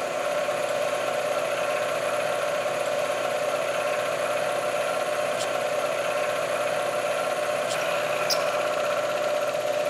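Manual milling machine spindle running steadily while an end mill is slowly fed into a metal block, cutting and throwing chips, with a steady hum. A few light ticks in the second half.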